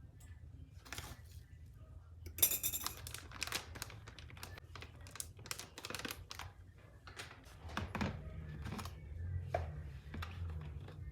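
A string of light clicks and knocks from small objects being handled, with a brief louder rustle about two and a half seconds in, over a steady low hum.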